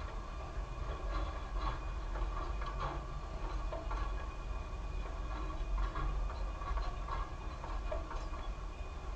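Narrow-gauge passenger coaches rolling past, a low rumble with scattered clicks of wheels on the rails.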